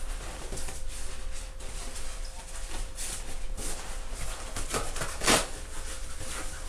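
Fabric of a collapsible photography light cube rustling and swishing as it is shaken and twisted open from its folded figure-of-eight shape, with one louder swish about five seconds in.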